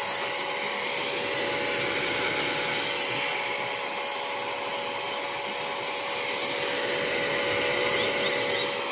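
Steady whirring of an electric fan, with a faint constant hum underneath.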